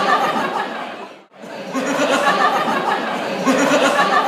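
Dinner guests talking and chuckling at a table, with the sound cutting out abruptly for a split second about a second in.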